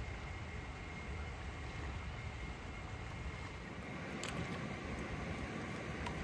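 Steady rush of flowing river water, with a few faint clicks about four seconds in.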